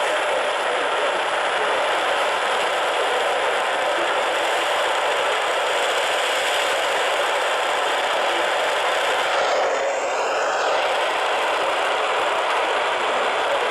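Steady hiss of radio static from a receiver with no programme coming through. About ten seconds in, the hiss briefly changes tone and loses its top end.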